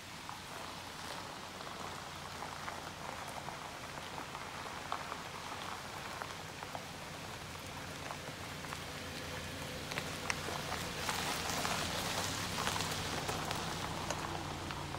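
Car tyres crunching and crackling slowly over a dirt track of gravel, twigs and leaf litter as a Subaru Outback and then a Subaru Forester drive past, with a low engine hum underneath. It grows louder as the cars come close, loudest in the last few seconds.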